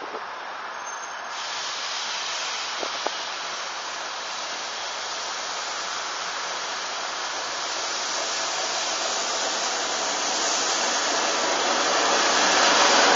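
TEP70 diesel locomotive hauling a passenger train as it approaches: a steady rush of engine and wheel noise that grows louder as the train nears and is loudest near the end.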